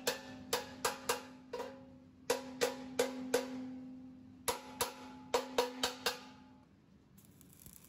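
Hand hammer striking the welded steel end of an air-compressor tank, about sixteen blows in three quick bursts; the tank rings after each blow with a steady metallic tone. The blows stop shortly before the end, leaving a faint hiss.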